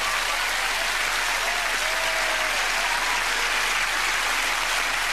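Studio audience applauding steadily after a song, a dense even clapping that holds at the same level throughout.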